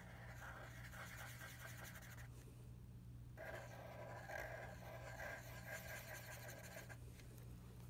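Black Sharpie marker tip scratching over paper in quick short strokes as small circles are drawn and filled in. It goes in two spells, with a pause of about a second between them near the middle. A faint steady low hum sits underneath.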